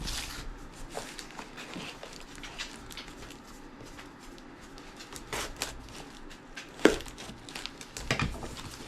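A parcel being unpacked: cardboard flaps and packing material rustling and crinkling, with scattered clicks and one sharp snap about seven seconds in.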